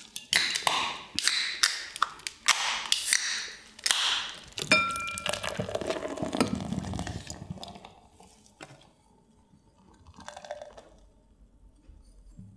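Sharp clicks and clinks of beer cans and glasses being handled, with one short ringing clink about five seconds in, then beer pouring from cans into glasses.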